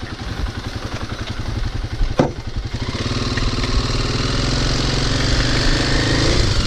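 Kawasaki motorcycle engine running with a low pulsing beat as the bike rides off over grass, its note rising steadily from about three seconds in as it speeds up. A single sharp knock about two seconds in.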